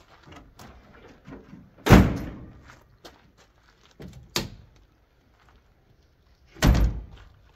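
Pickup tailgate slammed shut about two seconds in, then the camper shell's glass rear hatch pulled down and slammed shut near the end, with a lighter knock in between.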